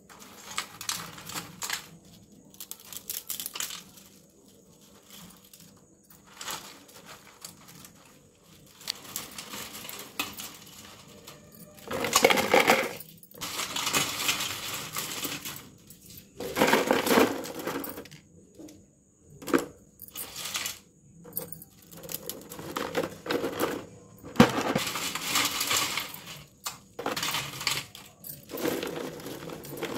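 Crisp fried ribbon pakoda pieces rattling and clinking in a container, in repeated bouts with short pauses between.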